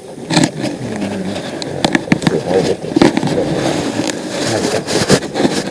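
Wooden beehive parts being handled: sharp clicks, knocks and scraping as frames are pried loose and lifted out of the hive box.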